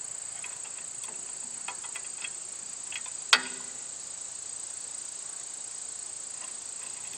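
Steady high-pitched insect chirring, with a few faint clicks, then one sharp metallic clink about three seconds in from the loader's bucket-mount hardware being worked by hand on a subcompact tractor.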